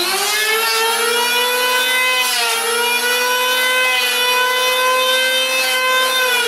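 Corded handheld electric power tool starting up with a quick rising whine, then running at a steady high pitch while it shaves down a piece of wood. The pitch dips briefly about two and a half seconds in as the tool bites, and starts to fall near the end as the motor is switched off and winds down.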